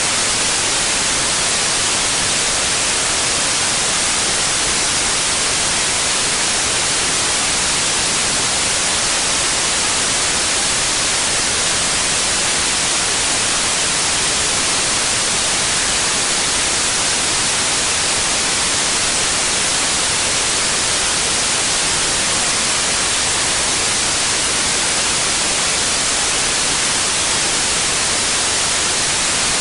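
Steady electronically generated white noise: an even, unchanging hiss, brightest in the treble.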